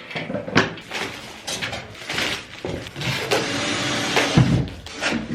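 Knocks and clatter of flat-pack wardrobe parts being handled during assembly, with a stretch of scraping a little past halfway and a heavy thump about four seconds in.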